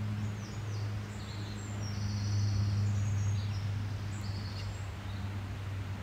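A small songbird sings high, thin chirps and short trills in broken phrases, over a steady low hum.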